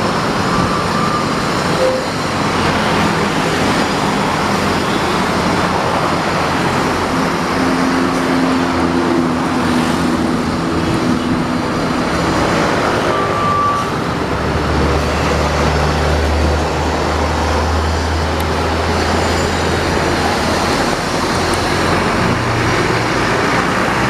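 Buses driving on the road: steady, loud engine and tyre noise. A deep engine drone rises out of the din for several seconds past the middle.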